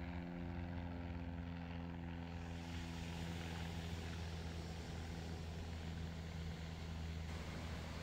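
Steady low engine drone made of evenly spaced hum tones, its upper tones fading a few seconds in as a faint hiss rises.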